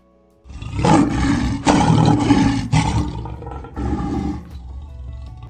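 A lion's roar sound effect. It starts suddenly about half a second in, is loud and rough for a couple of seconds, then fades away.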